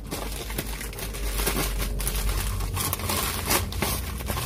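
Grey plastic courier mailer bag crinkling and rustling in irregular crackles as it is handled and a cardboard box is pulled out of it.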